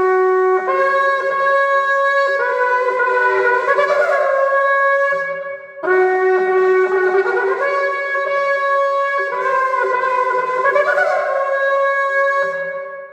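Shofar blown in two long blasts with a short break about six seconds in; each blast steps between notes and bends upward near its end.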